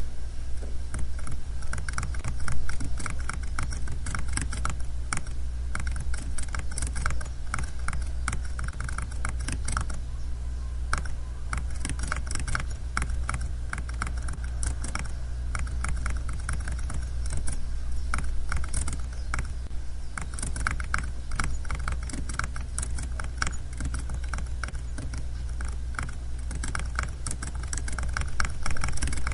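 Continuous typing on a computer keyboard: many quick, uneven key clicks over a steady low hum.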